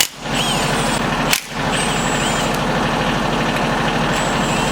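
A steady machine running with a low, even hum, briefly dropping out twice: once at the start and again about a second and a half in.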